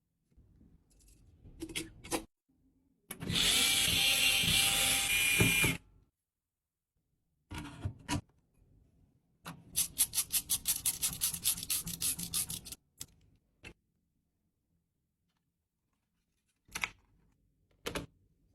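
Tool and hardware sounds of a PC being assembled: scattered clicks and knocks, a steady power-tool-like run of about two and a half seconds, then a rapid even run of about four clicks a second for about three seconds.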